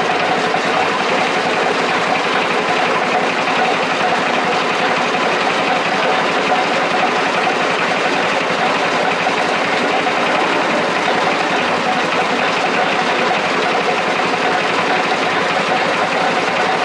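Wassun coffee cherry pulping machine running steadily, belt-driven by a small single-cylinder petrol engine. A continuous engine note mixes with the rattle of the machine as coffee cherries pass through it.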